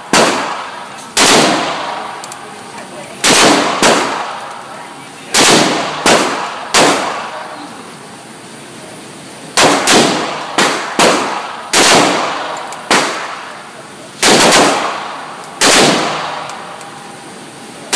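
AK-pattern rifle firing shots in irregular groups, some spaced well apart and some in quick succession, about sixteen in all. Each shot rings out with a long echo off the walls of the indoor range.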